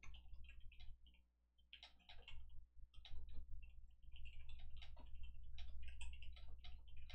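Computer keyboard typing: quick, irregular clicks of keys in runs, pausing briefly about a second in, over a low steady hum.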